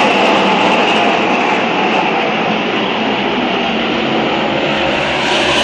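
A pack of NASCAR Camping World Truck Series race trucks' V8 engines running together in a loud, steady drone, easing slightly midway and swelling again near the end as the field comes by.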